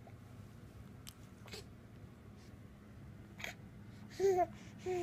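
Infant babbling: two short pitched coos, about four seconds in and again at the end, with a few faint short sounds before them.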